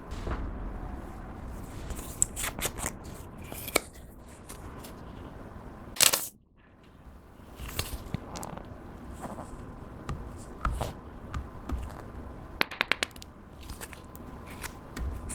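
Clear slime being worked by hand, giving scattered sharp sticky clicks and pops, with one louder snap about six seconds in and a quick run of clicks near the end.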